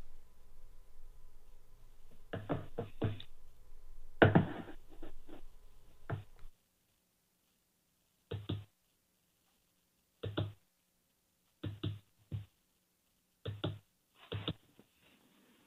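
Scattered short, faint knocks and bumps in a small room, with a steady low hum that cuts off about six and a half seconds in.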